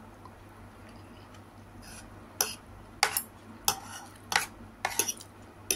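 Metal spoon and fork clinking and scraping against a plate while eating: a string of sharp clinks, about one every half second to second, starting about two seconds in.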